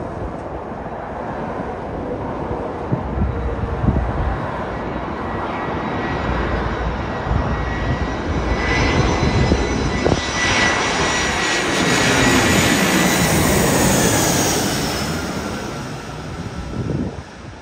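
Jet engines of an Airbus A319-100 airliner on final approach, passing low overhead: a rush that builds, is loudest about three-quarters of the way through, then fades, with a high whine that drops in pitch as the plane goes by.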